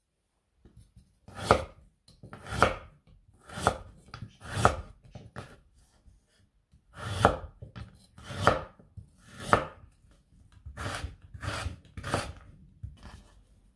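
Kitchen knife cutting through raw carrot onto a wooden cutting board: slow, separate cuts about one a second, with a short pause about halfway through.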